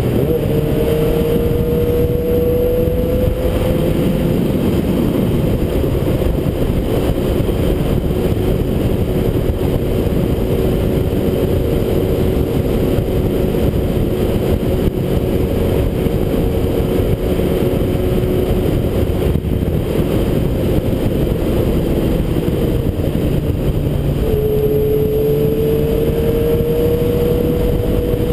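Suzuki GSX-R600's inline-four engine running at steady road speed under heavy wind rush. The engine note drops once near the end and climbs back.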